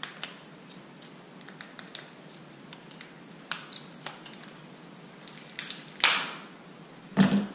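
Plastic blister packaging being cut and pried open by hand: scattered small clicks and crinkles, with louder crackles about three and a half and six seconds in and a short knock near the end.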